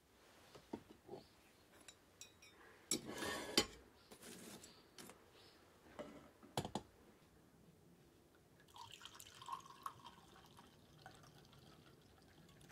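Quiet tableware and cooking-utensil sounds: a wooden ladle and iron pot clinking while soup is served into a lacquer bowl, a short clattering scrape about three seconds in and a couple of sharp knocks, then liquid trickling and gurgling as sake is poured from a bottle into a lacquer pourer near the end.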